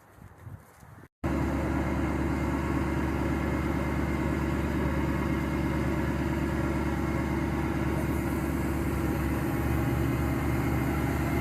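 A vehicle engine idling steadily, starting abruptly about a second in after a brief moment of faint sound.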